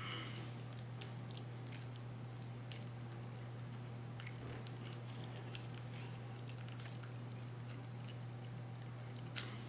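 Faint, scattered clicks of a lock pick and tension wrench working in a Master Lock 570 padlock, about six light ticks a second or more apart, over a steady low hum.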